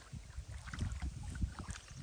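Irregular low thumps and sloshing of lake water against the hull of a small boat rocking near shore.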